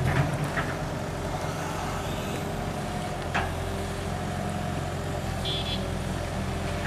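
Sumitomo 265 excavator's diesel engine running steadily, with one short knock about three and a half seconds in.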